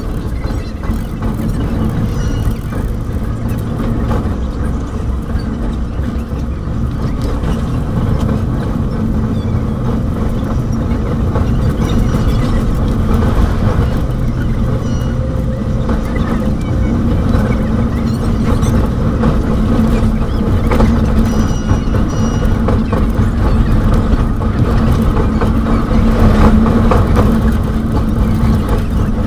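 KA Bima passenger train running on the rails, heard from inside the carriage: a steady low rumble with a constant hum.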